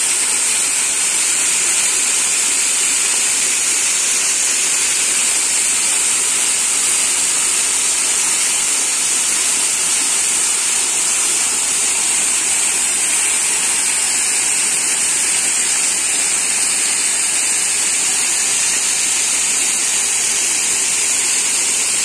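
Waterfall pouring fast down a rock face and splashing onto the boulders below: a loud, steady rush of falling water that does not change.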